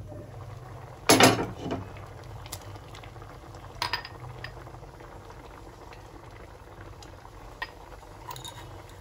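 Spinach dal bubbling at a steady boil in an open pan. About a second in there is a loud clatter as the glass lid is lifted off, and a few light metal clicks come later.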